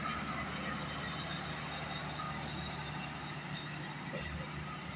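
Steady low rumble and hum of a slow-moving passenger train, with no sudden knocks.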